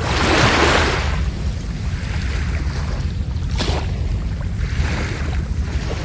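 Small sea waves washing onto a sandy beach: a loud surge of surf in the first second, fainter washes about three and a half and five seconds in, over a steady low rumble of wind on the microphone.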